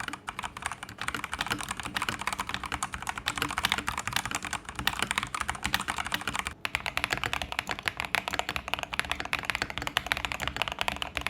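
Fast, continuous typing on a Zifriend ZA87 tenkeyless mechanical keyboard, keystrokes following each other in rapid clicks, breaking off briefly about six and a half seconds in. It is a before-and-after sound test of the board stock and after a tape mod, PE foam mod and switch swap.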